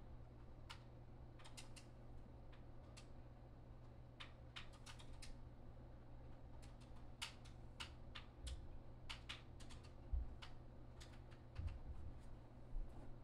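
Irregular light clicks, a few a second, in uneven clusters over a steady low hum, with a couple of soft low thumps in the second half.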